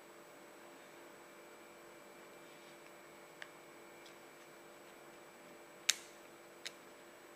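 A few small, sharp plastic clicks from the Alcatel OT-355 being handled at its SIM card slot with its back cover off, the loudest about six seconds in and another soon after, over a faint steady background hum.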